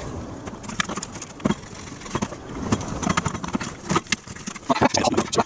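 Handling noise: a few scattered knocks and clicks as a small replacement speaker, mounted on a wooden board, is pressed and fitted into an opened boombox cabinet. The knocks come closer together near the end.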